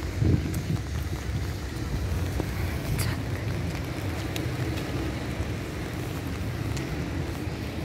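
Wind rumbling on the microphone over a steady low outdoor street noise, with a few faint ticks and a brief bump just after the start.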